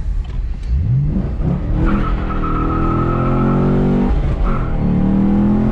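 Chevy SS's 6.2-litre LS3 V8 accelerating hard through the gears of its manual gearbox: the engine note climbs, drops briefly at a shift about two seconds in and again about four seconds in, then climbs again.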